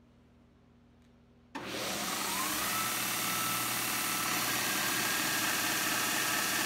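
Abrasive belt tube notcher switched on about a second and a half in: the motor and sanding belt start with a rising whine that levels off into a loud, steady run. Later the belt grinds a notch into the end of a stainless steel tube.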